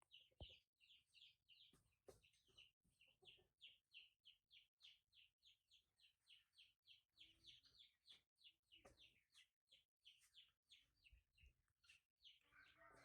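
Faint, rapid high-pitched chirps from a small animal, about three or four a second, each one dropping slightly in pitch and running together near the end.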